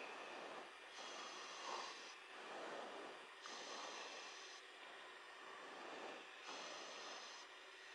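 Faint hiss of an open radio or intercom channel between transmissions, swelling and dropping every second or so.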